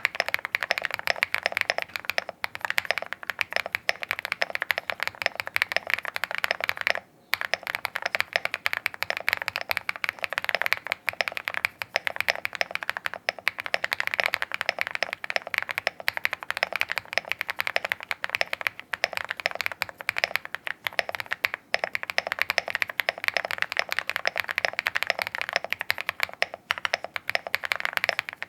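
Continuous fast typing on a Siren VK87 custom mechanical keyboard, a dense run of keystroke clacks with a short pause about seven seconds in. The keyboard is built for a deep "thock" sound.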